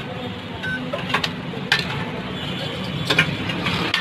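Busy street-food stall: a steady hum of traffic and cooking noise, with a few sharp clinks of steel bowls and utensils.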